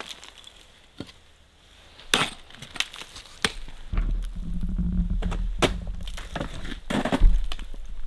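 Ice axe picks swung into the ice of a frozen waterfall: a series of about six sharp, cracking strikes, the loudest about two seconds in. A low rumble runs underneath through the second half.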